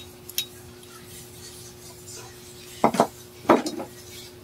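Metal motorcycle engine parts clinking and knocking as they are handled and set down: a light click near the start, then two louder clattering knocks about three seconds in.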